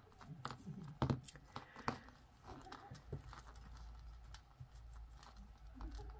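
Faint rustling and a few light clicks from handling a necklace: ribbon cords and a metal chain and clasp turned over in the fingers.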